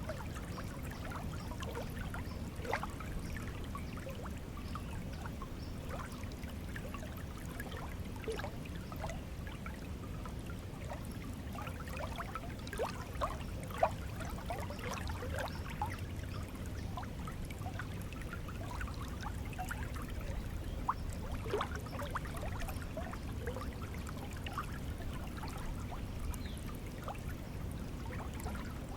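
Flowing water: a steady low rush with scattered bubbling, plinking trickles that come busier around the middle.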